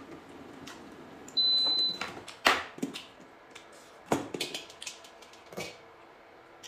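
A single high electronic beep lasting about half a second, followed by a few sharp knocks and clacks, the first of them the loudest.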